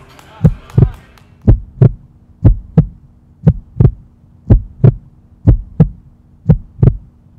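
Heartbeat sound effect: deep double thumps, one pair about every second, over a steady low hum that comes in about a second in.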